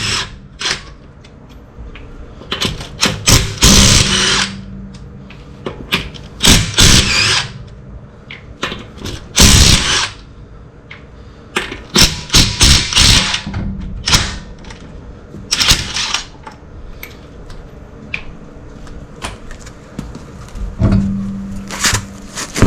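Bosch GDX18V-1800B 18-volt 'Freak' impact wrench hammering lug nuts off a car wheel, in short bursts of about a second each, roughly nine times with pauses between.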